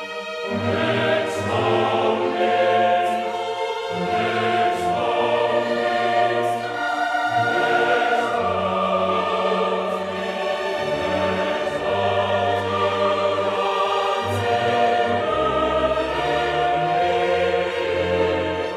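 Choral music with orchestra: a choir singing long held notes over a sustained low bass line.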